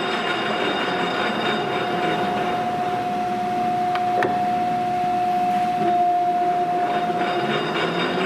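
Leblond sliding gap bed lathe's geared headstock running at speed with the chuck spinning: a steady gear whine with a clear high tone held throughout, and a single short click about four seconds in.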